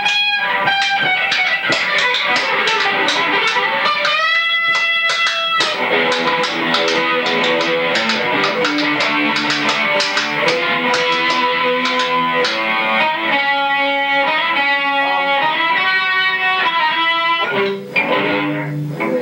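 Electric guitar playing a lead line: a long held note about four seconds in, then quicker runs of short notes.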